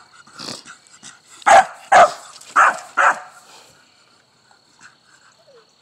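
A dog barking: one faint bark about half a second in, then four loud barks in quick succession, after which it stops.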